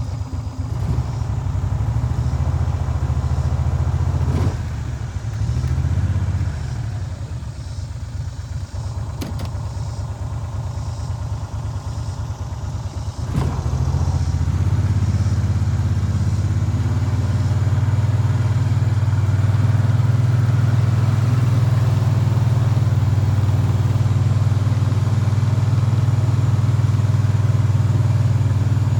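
Farm vehicle engine running as it is driven, a low drone with a few knocks and rattles in the first half. It runs louder and steadier from about halfway.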